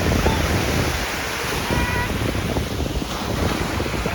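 Waves breaking on the shore, with wind buffeting the microphone as a heavy low rumble. A faint, short, high call is heard about two seconds in.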